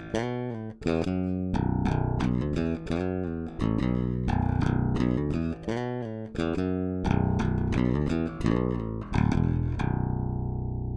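Warwick Streamer electric bass guitar played solo: a phrase of plucked notes with sharp attacks, ending about nine seconds in on one long note left to ring and slowly fade.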